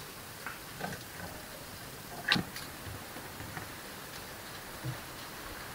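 A few scattered light clicks over a steady quiet hiss. The sharpest click comes a little over two seconds in, and a soft low knock near the end.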